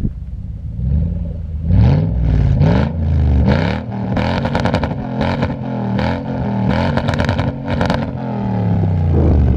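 Lexus GX's V8 through an aftermarket exhaust, revved in a run of quick throttle blips, the pitch rising and falling with each. It drops back to a steady idle near the end.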